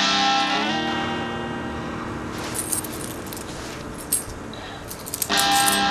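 Soundtrack music: a guitar chord strummed and left to ring out, then struck again near the end, with a few faint high clicks in between.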